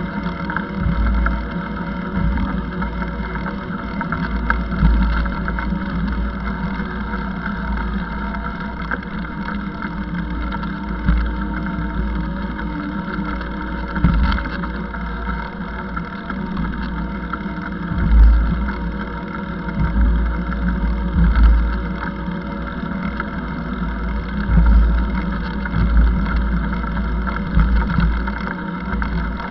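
Wind buffeting the microphone of a moving camera, with gusts of low rumble that rise and fall, over a steady mechanical drone of several held tones.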